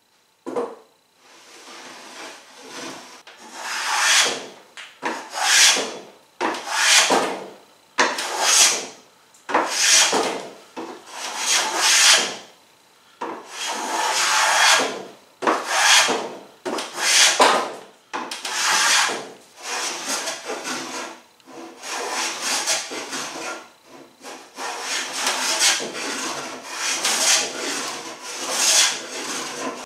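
Taylor Tools No. 5½ jack plane taking shavings off a riff-sawn white oak board, with repeated rasping push strokes about one a second. The plane is taking down the high spots to straighten the board.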